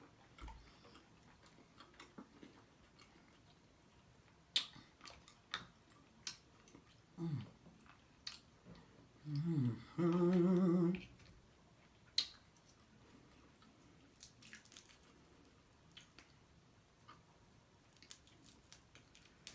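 A person chewing and smacking their lips close to the microphone, with scattered wet clicks throughout. A few short hummed 'mmm' sounds of enjoyment come in the middle, the last and loudest held for about a second.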